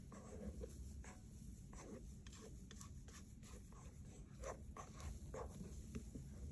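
Faint, irregular scraping and soft ticks as a silicone spatula scrapes stiffly whipped egg whites out of a stainless steel bowl, its edge rubbing and tapping against the metal.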